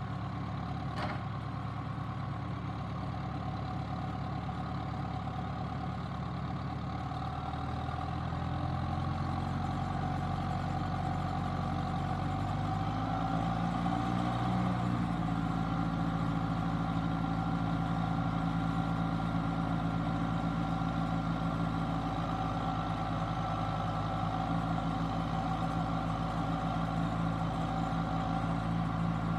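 John Deere 6330 tractor's diesel engine running; its speed rises in two steps, about a third and about halfway through, then holds steady with a thin high whine over it.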